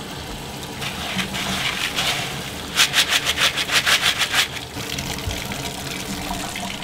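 Bathtub faucet running into a plastic colander of aquarium gravel being rinsed. Near the middle, a rapid run of rattles lasting about a second and a half as the gravel is stirred by hand under the stream.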